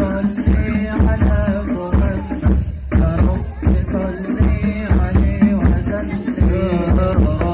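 Hadroh ensemble playing rebana frame drums in a steady rhythm under sung Islamic devotional chant (sholawat), amplified through a village sound system.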